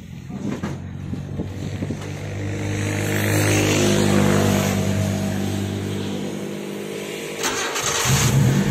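Honda Civic race car engine cranking briefly, then catching and running steadily, now that its broken ECU ground wire has been restored. A short hiss comes near the end.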